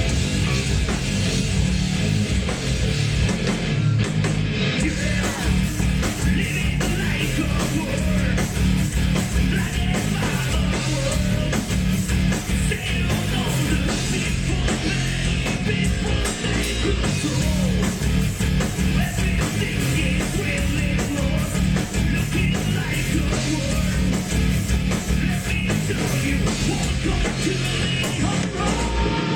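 Heavy metal music: distorted electric guitars over dense, fast drumming, played steadily and loud throughout.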